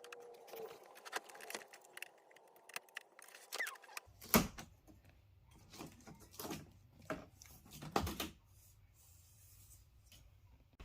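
Irregular clicks, taps and knocks of hands handling the plastic and metal parts of a flat-screen TV being taken apart, with the loudest knock a little over 4 seconds in.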